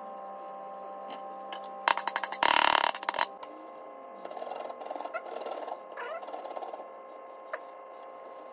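Kitchen food-preparation noises over a steady hum: a loud crackling rustle about two seconds in, lasting about a second and a half, then softer irregular handling sounds.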